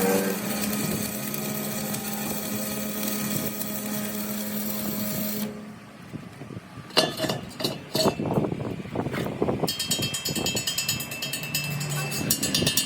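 A power tool running steadily, then stopping abruptly about five seconds in, followed by a series of sharp metallic knocks and clicks; near the end a fast, even rattling with a high steady tone.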